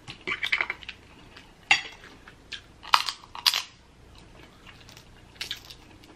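Dungeness crab leg shells being cracked and snapped apart by hand, a quick cluster of small cracks at the start, then single sharp snaps about two, three and three and a half seconds in, and another near the end.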